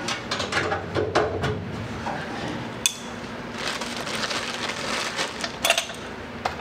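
Metal parts being handled on a steel roll-cage chassis: scattered clicks, rattles and rubbing, with one sharp click about three seconds in and a quick run of clicks near the end, over a steady low hum.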